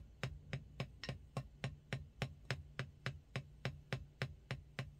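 A hand rhythmically tapping a loosely held wooden drumstick near its taper, bouncing it in an even, steady pulse of sharp ticks, about three and a half a second: a drummer's stick-bounce hand exercise.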